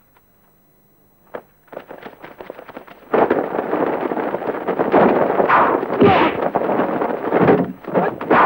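Commotion of a staged sword fight as attackers burst in. A single sharp click about a second in, then scattered crackling that builds into a loud, dense clatter of bangs and cracks from about three seconds in.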